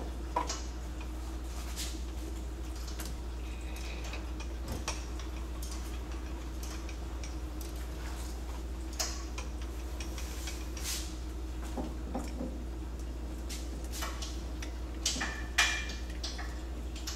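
Steady low hum of the stopped lathe and shop, with scattered metallic clicks and clinks as a mating threaded part is handled and tried onto the freshly cut thread; the loudest are two clinks about fifteen seconds in.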